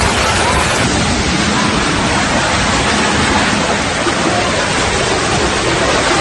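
Steady rushing noise of a rainstorm with running floodwater.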